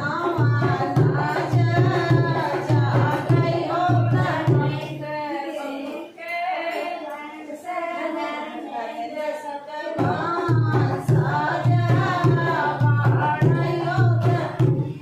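Women's voices singing a sohar folk song to a hand-played dholak's steady beat. The drum drops out about five seconds in and comes back in about ten seconds in, while the singing carries on.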